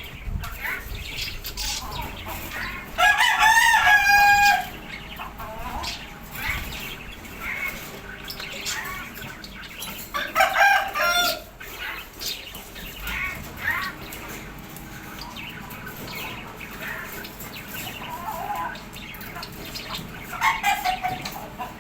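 Rooster crowing: a long crow about three seconds in, shorter ones near the middle and near the end, with fainter short calls between.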